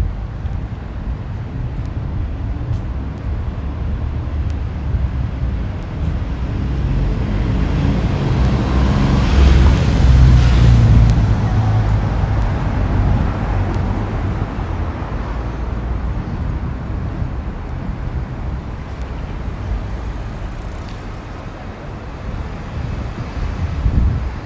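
Road traffic: a vehicle passes, its sound building to a peak about ten seconds in and then fading away, over a low wind rumble on the microphone.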